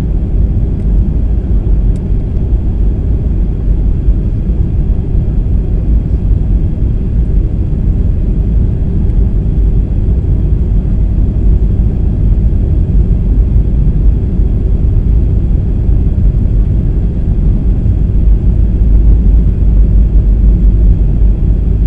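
Steady low rumble of engine and airflow noise inside the cabin of a Boeing 737 airliner descending on approach to land, with flaps extended. It swells slightly near the end.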